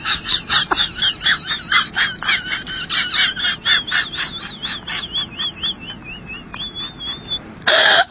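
Rapid bird-like warbling whistle: fast chirps and trills, several a second, that turn into a short steady whistle near the end. A brief loud rush of noise follows just before the end.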